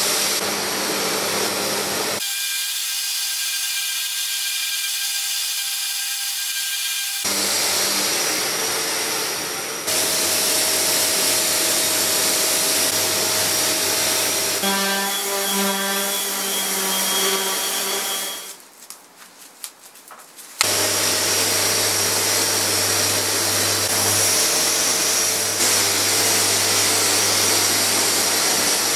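Random orbital sanders, including a Festool Rotex, running on the wooden bench frame and sanding off the old finish, in several takes that change in pitch and tone. For about two seconds, roughly two-thirds of the way through, the sound drops low before the sanding comes back.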